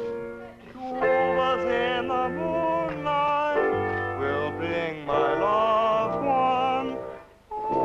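Tuba band music with an operatic lead singing held, wavering notes in short phrases over the low brass. The music breaks off briefly near the end.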